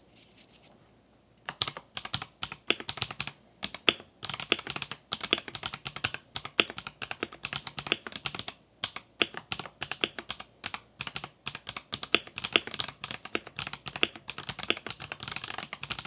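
Typing on an RK Royal Kludge M75 mechanical keyboard fitted with Akko V3 Cream Blue Pro tactile switches: a fast, continuous run of keystroke clacks that starts about a second and a half in.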